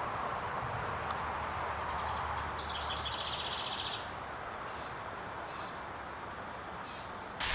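Outdoor ambience: a steady background hiss with a bird trilling briefly about three seconds in. Right at the end, a loud sizzling hiss of bacon frying in a pan cuts in suddenly.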